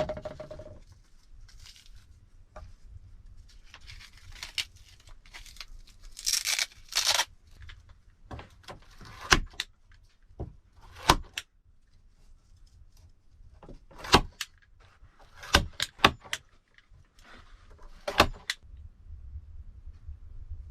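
Irregular sharp knocks and clicks, about a dozen, with stretches of rustling between them, as objects are handled and set down; the first knock rings briefly.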